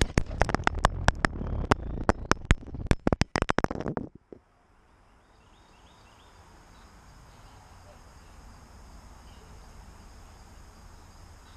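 A rapid, irregular run of sharp clicks and knocks for about four seconds, then an abrupt cut to a faint outdoor background with a few faint chirps.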